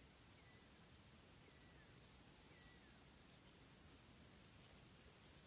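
Faint cricket chirping: short, evenly spaced high chirps repeating roughly twice a second, with a few faint falling notes in between.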